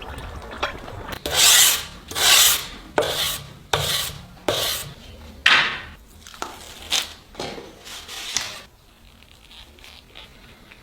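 Rasping strokes of a hand file, a dozen or so pushes less than a second apart, that stop about three-quarters of the way through.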